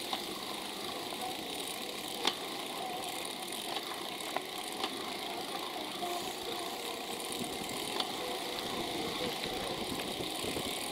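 Steady road and wind noise picked up by a camera mounted on a moving bicycle, with a few sharp clicks and rattles as the bike rolls over the road surface.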